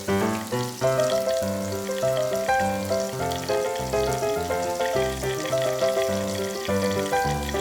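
Background music with a melody over a repeating bass line. Under it, pork belly sizzles on a grill.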